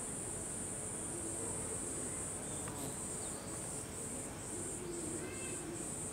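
Cicadas buzzing in a high, steady drone that, about three seconds in, breaks into an even pulsing of two or three pulses a second.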